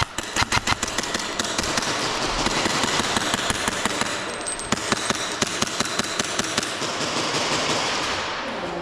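Airsoft gun firing on full auto: a fast burst of about ten shots a second that stops within the first second, followed by a steady rush of noise with scattered single airsoft shots.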